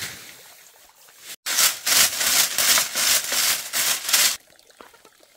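Quick, rough rubbing strokes on a surface, about three a second for about three seconds, stopping abruptly; a single scrape comes just before them at the start.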